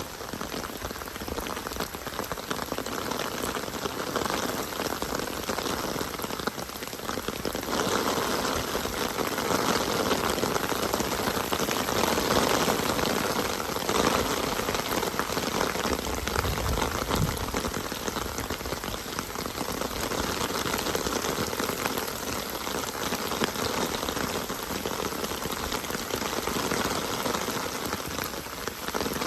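Steady rain falling, a dense even patter of drops that swells a little in loudness around the middle.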